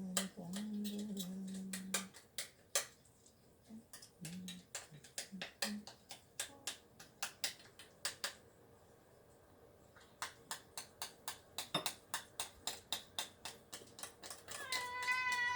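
A long run of sharp clicks, about three a second, with a quiet gap in the middle. A steady low hum opens it, and a wavering cat meow comes in near the end.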